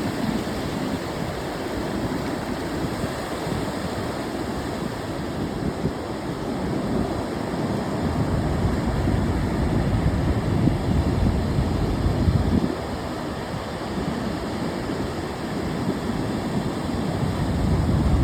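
Ocean surf breaking and washing ashore in a continuous rush with a low rumble, swelling louder midway and easing off about two-thirds through.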